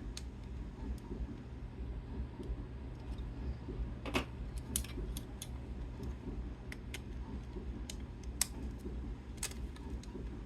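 Scattered sharp clicks and taps of small hard parts being handled, a few louder ones midway and near the end, over a steady low hum.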